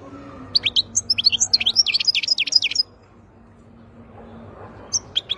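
Caged wild-caught European goldfinch singing: a rapid run of high twittering notes for a couple of seconds, then a pause and a few more notes near the end.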